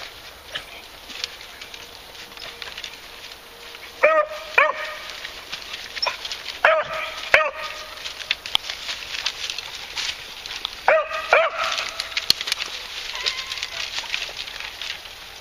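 Beagles barking in quick pairs, three times, short calls with a clear pitch, while they push through a brush pile; small crackles and snaps of twigs sound between the barks.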